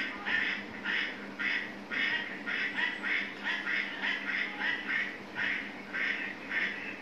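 Sleeping dog making short, nasal, quack-like noises in a steady run, about two a second.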